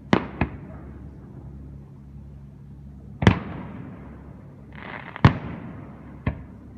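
Aerial fireworks shells bursting in the distance: five sharp bangs, each trailing off in an echo. A close pair comes right at the start, one about three seconds in, one about five seconds in with a short rush of noise just before it, and a last one a second later.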